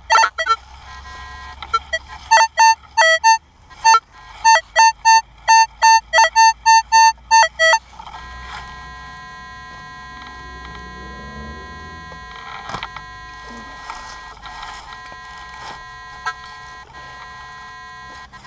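Minelab CTX 3030 metal detector giving a run of short, high beeps, about two a second, as the coil sweeps back and forth over a buried target. This is its high tone for a high-conductivity silver target, here an 1892 Barber dime. The beeping stops after about eight seconds, leaving a steady hum.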